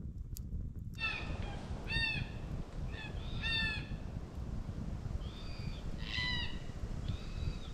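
Birds in the bush canopy giving a series of short calls that rise and fall in pitch, about six of them starting about a second in, over a steady low rumble of wind on the microphone.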